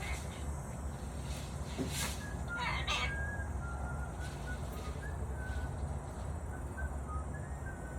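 Chicken calling: a short rough call about three seconds in, then a run of small high chirps, over a steady low rumble.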